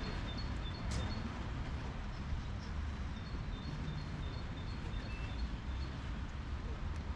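Steady outdoor noise with a low rumble, over which a small bird repeats a high two-note chirp at an even pace, falling quiet for a couple of seconds early on and then starting again.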